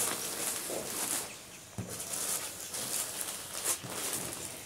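Plastic packaging of bagged cloth dish towels rustling and crinkling lightly in a few short bursts as the packages are handled one by one.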